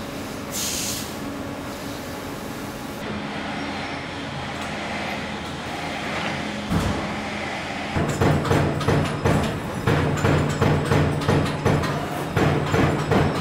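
Steady machine hiss from a laser cutter working steel sheet, with a single thump near the seven-second mark. From about eight seconds in, a CNC turret punch press punches the sheet in sharp, even strokes about three a second over a steady hum, with a short break near the end.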